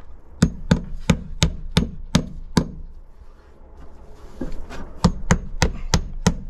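Hammer driving nails through the nail slots of vinyl siding: a quick run of about seven blows, a pause of about two seconds, then about six more blows.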